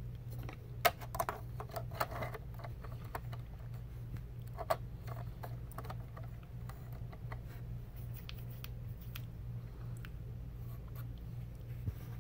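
Light clicks, taps and rubbing of a plastic scale-model semi truck being handled, the sharpest tap about a second in, over a steady low hum.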